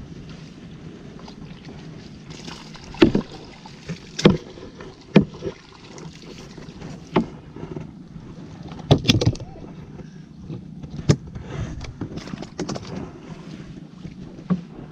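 A series of sharp, irregular knocks and clatter from a long bamboo dip-net pole striking a small fiberglass canoe, with brief splashy sloshing between, over a steady low hum.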